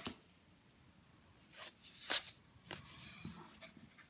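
A few soft rustles and taps of baseball cards being handled and set down on a table, the loudest about two seconds in.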